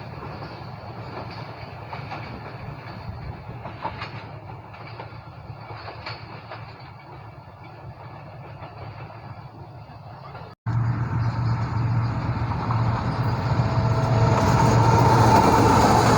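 Passenger express train running along the rails with wheel clatter. About ten seconds in the sound cuts abruptly to a louder passage with a steady low diesel-locomotive engine hum that grows toward the end.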